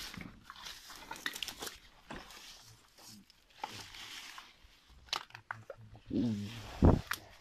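Footsteps and rustling through dense, dry weeds. Near the end, a short creak with a shifting pitch, then a heavy thump, the loudest sound here, which the explorers put down to a door they had left open.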